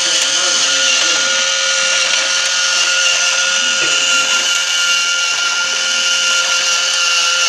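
Motor-driven clear plastic model car engine running: a steady mechanical whir with a constant high-pitched hum.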